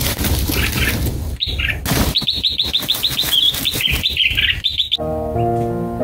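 Rustling scuffle in the nest foliage, then a bulbul's rapid string of sharp, high chirps. About five seconds in, the chirps stop and piano music begins.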